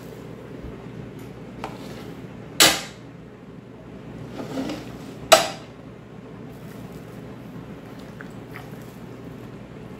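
Metal roasting pan and wire beer-can chicken stands being set down on a kitchen counter: two sharp clanks a few seconds apart with a short ringing tail, and a fainter click before the first, over a steady low hum.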